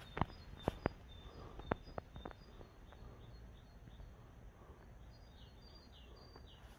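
Faint outdoor ambience with small birds chirping: a few short, high, falling chirps near the end. A handful of sharp clicks sound in the first two seconds or so, and they are the loudest thing heard.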